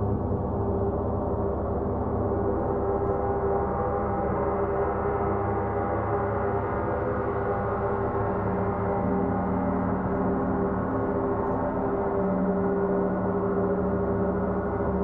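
Large Paiste gongs played continuously in a gong bath: a dense, sustained wash of many overlapping ringing tones over a deep hum, with no single sharp strike standing out. The low tones shift now and then as the gongs are kept going.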